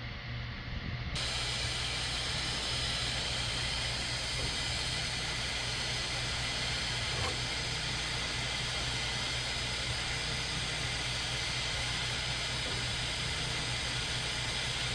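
Bambu 3D printer's cooling fans running steadily: an even hiss over a low hum, with no motor moves standing out. The hiss turns suddenly brighter about a second in.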